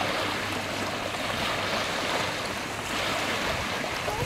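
Wind and choppy water lapping on open water, a steady rushing noise, with a low steady engine hum underneath.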